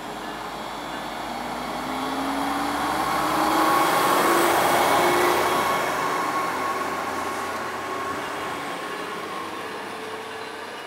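Stadler GTW diesel multiple-unit light-rail train pulling away from the platform, its diesel engine and drive rising in pitch as it accelerates. The sound swells to its loudest about four seconds in, then fades as the train draws away.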